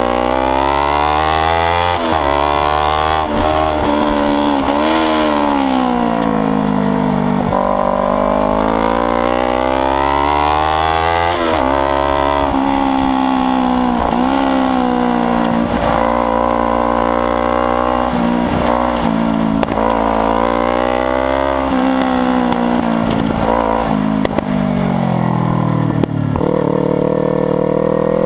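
Kawasaki Ninja 300's parallel-twin engine, loud, revving hard on track. The note climbs and falls again and again, with many sharp brief dips at quick gear changes.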